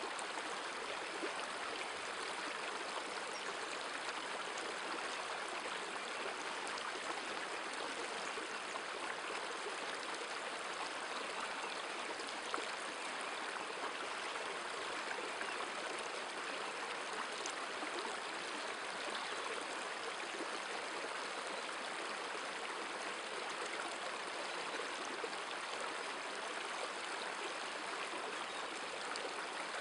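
River water running steadily over stones in a shallow, rippling stretch: a constant rushing hiss.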